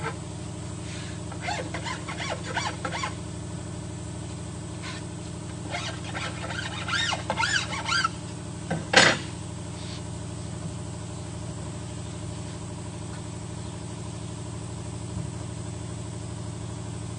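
A steady low mechanical hum runs throughout. Scattered short squeaky chirps come in two clusters, and a single sharp knock sounds about nine seconds in.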